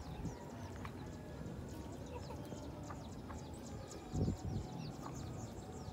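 Many short, high chirps from small birds, rapid and overlapping, over a low rumble, with a brief thump about four seconds in.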